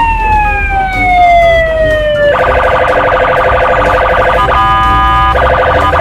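Electronic police-car siren: a long falling wail that switches about two seconds in to a fast warbling yelp, briefly broken by a steady tone near the end.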